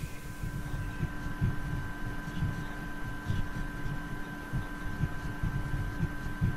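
Electronic video-art soundtrack: low, irregular throbbing pulses, about one or two a second, under a few steady held tones.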